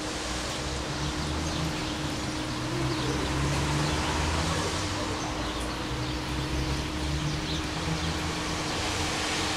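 Electric train approaching on the line: a steady low rumble under a broad hiss, swelling slightly about three to four seconds in, with a steady hum throughout.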